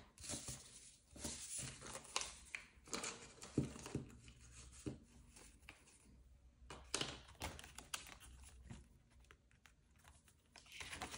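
Paper banknotes and clear plastic binder envelopes rustling and crinkling as they are handled, in short irregular rustles with quiet gaps between.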